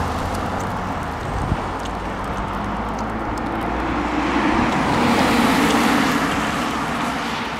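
Cars driving past on the road, a steady mix of engine and tyre noise that swells as one passes close about five seconds in, then fades.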